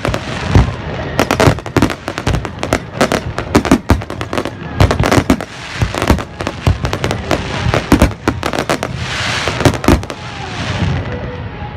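Fireworks display, many sharp bangs going off in quick succession, with a stretch of crackling hiss about nine to eleven seconds in.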